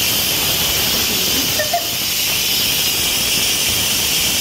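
Instant Pot electric pressure cooker venting steam through its pressure-release valve: a loud, steady hiss as the pot is quick-released before opening.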